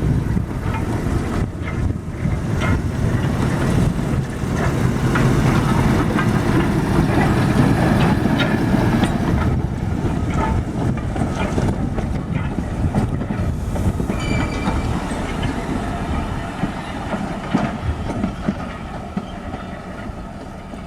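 Train running on rails: a steady rumble with repeated clicks of wheels over rail joints, growing louder towards the middle and then easing off. A thin high wheel squeal joins about two-thirds of the way through.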